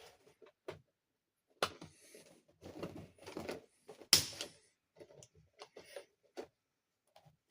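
Hard plastic toy dollhouse parts being handled and set down: irregular clicks, knocks and rustles, the sharpest knock about four seconds in.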